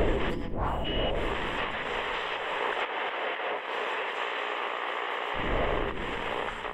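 A steady rushing hiss with a deep rumble under it that dies away about half a second in and swells back near the end, with a brief thin tone about a second in.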